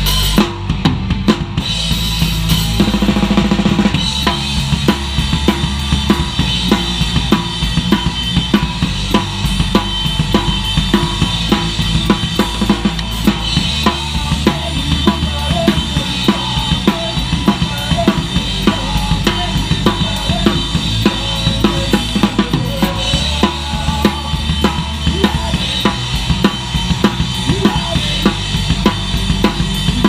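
Live horror punk band playing: a drum kit pounds out a fast, steady beat of bass drum, snare and crashing cymbals under electric bass and distorted electric guitar.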